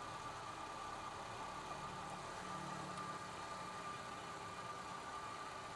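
A car engine idling steadily, with a thin steady whine through it, while its engine-bay parts are checked one by one for a noise. The air-conditioning compressor being checked here sounds normal.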